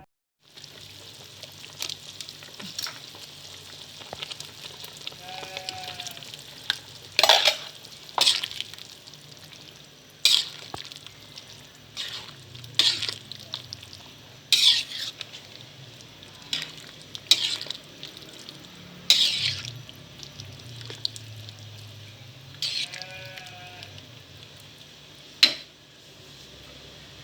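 Food frying in a pan with a steady sizzle, while a spatula stirs it, scraping and knocking against the pan many times.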